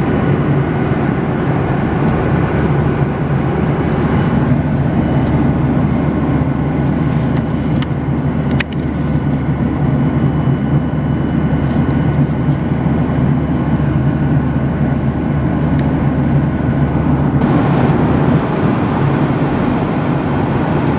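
Steady cabin drone of a Boeing 737-800 at cruise: engine and airflow noise heard from inside the main cabin, with a few light clicks. The low rumble eases a little near the end.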